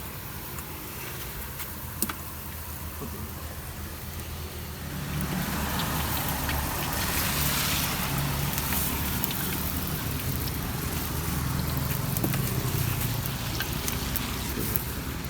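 A motor vehicle engine running close by, getting louder about five seconds in, over a steady hiss.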